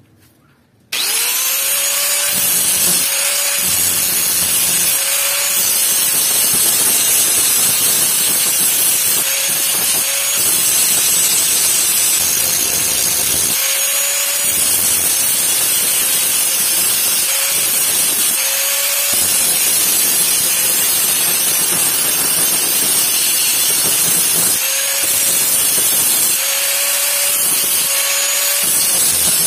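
Handheld angle grinder switched on about a second in, spinning up, then grinding rust off the steel blade of an old knife with an abrasive disc. The motor's whine dips each time the disc bears down on the steel and recovers when it eases off, over a continuous harsh grinding noise.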